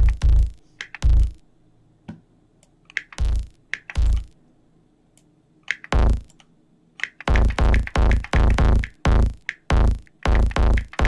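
Saturated kick-drum samples from Ableton Live's Drum Sampler played as a bass pattern of short, deep, distorted hits. The pattern thins to a few scattered hits about a second and a half in, then comes back as a fast run of about three hits a second around seven seconds in.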